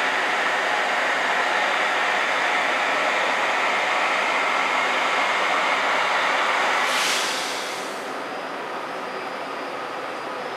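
Loud steady whooshing, fan-like noise beside a stationary Linimo maglev train, which the uploader takes to be the station's blower. About seven seconds in there is a short hiss, and the noise drops to a lower steady level.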